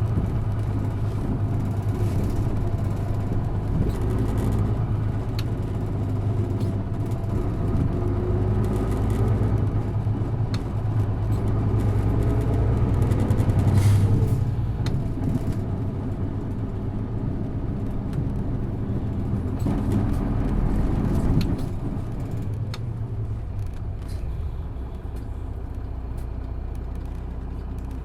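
Isuzu Erga city bus's diesel engine running under way, heard inside the cabin: it pulls hard with the engine note building, eases, pulls again and then drops off sharply about three-quarters of the way through, running quieter after. Scattered clicks and rattles are heard over it.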